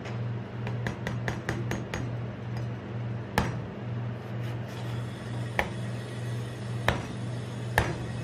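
A cleaver chopping into the husk of a green young coconut: a few light taps, then four hard chops spaced a second or two apart, over a steady low hum.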